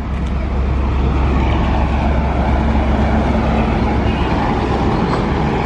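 Large bus engine running close by as it passes on the road, a steady deep rumble over general street traffic noise.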